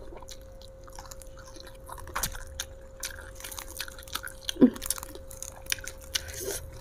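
Mouth chewing raw mature jengkol (dogfruit), with crisp crunches and wet clicks at an uneven pace.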